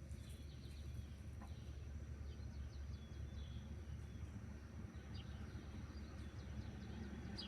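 Faint outdoor ambience: a steady low rumble with scattered short bird chirps.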